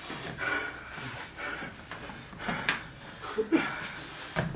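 Panting breath and footsteps on a wooden floor, with a sharp knock about halfway through.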